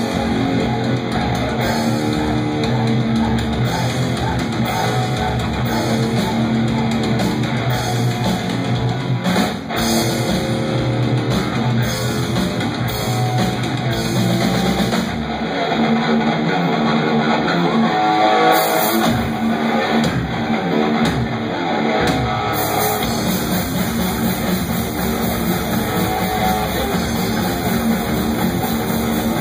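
Live rock band playing: electric guitars, bass guitar and drum kit. The bottom end drops away for several seconds around the middle.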